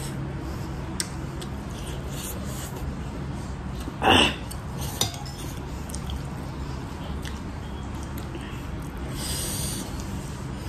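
Eating sounds: a fork clinking and scraping on a ceramic plate while twirling instant noodles, with chewing. There is one louder short sound about four seconds in, over a steady low hum.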